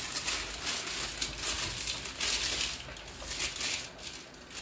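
Gloved hands kneading raw chicken drumsticks in marinade in a plastic bowl: an irregular run of crinkling and squishing sounds, loudest a little past two seconds in.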